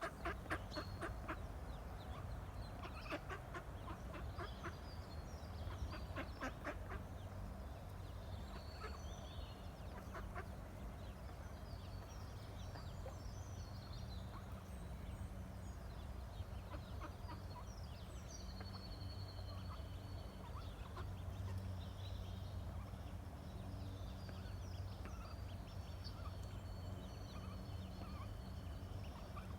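Mallard duck and ducklings calling: short rapid notes in clusters over the first seven seconds, and high chirping peeps throughout, over a steady low hum.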